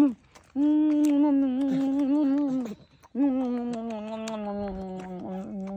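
A person humming long, held notes that waver slightly and slide down at their ends, broken by short pauses about half a second and three seconds in.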